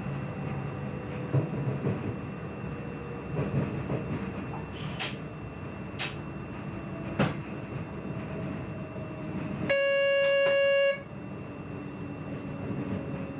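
Train running at speed, heard from the driver's cab, with a few sharp clicks. Near the end comes a loud, steady single-pitched signal tone lasting just over a second.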